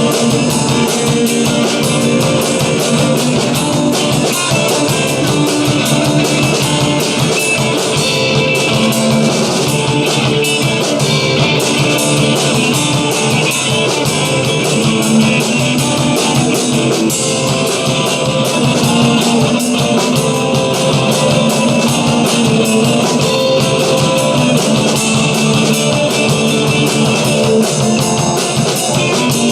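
Rock music with guitar and a drum kit, playing steadily and loud.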